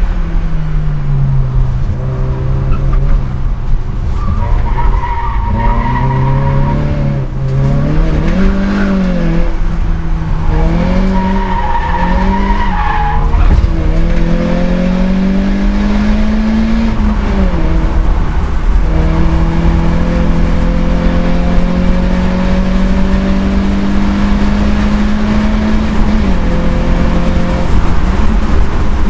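Citroën Saxo VTS rally car's 1.6-litre four-cylinder engine heard from inside the cabin, revs climbing and dropping with gear changes and lifts for corners. The tyres squeal through two corners, about five and eleven seconds in, and the revs hold one long climb near the end before a gear change.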